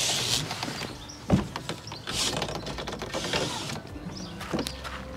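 A motorhome door latch clicks as the door is opened, then a few footsteps crunch on gravel.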